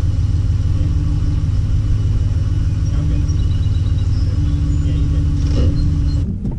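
Steady low engine and road rumble inside a moving car's cabin, cutting off abruptly just before the end.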